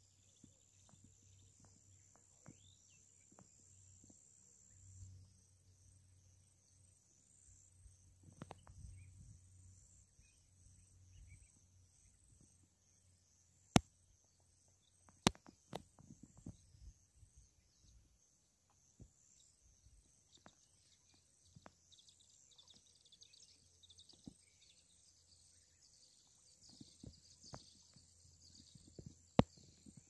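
Faint lakeshore dawn ambience: a continuous high-pitched chirring of insects, with scattered clicks and knocks, two of them sharp and loud about 14 and 15 seconds in.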